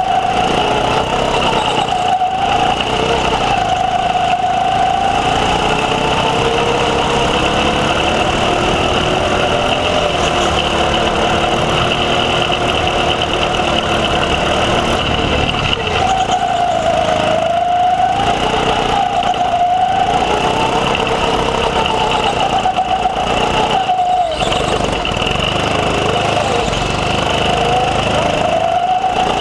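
Go-kart engine running hard, heard close on board, its pitch climbing and falling over and over as the throttle is opened and eased through the corners, with a few brief dips.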